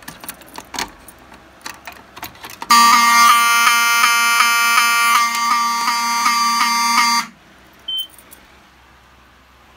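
Clicks as a fire alarm pull station is worked, then Wheelock 7002T horn strobes, on filtered 24 V DC, sound a loud, steady buzzing horn tone for about four and a half seconds before cutting off suddenly: the pull station being activated in walk test. A short high beep follows near the end.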